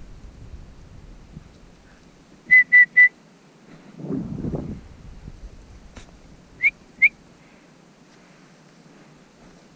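A dog whistle blown in three quick short blasts, then, a few seconds later, two short blasts that bend upward in pitch. Signals to a pheasant-hunting bird dog. Between them comes a brief low rush of noise.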